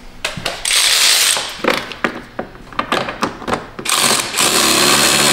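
Cordless electric ratchet running in two short bursts while driving a bolt on the engine, about a second in and again from about four seconds in, with several sharp clicks between them.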